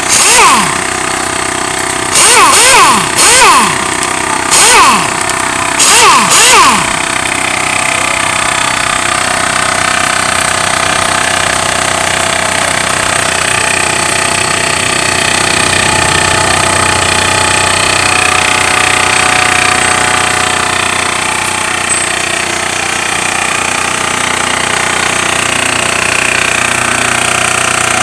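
Makita AC401NX air compressor running steadily. About six short, loud bursts come in the first seven seconds, then the steady running carries on alone.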